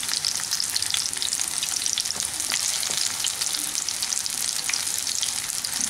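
Cornflour-coated paneer cubes frying in hot refined oil in a kadai: a steady sizzle with frequent small crackling pops.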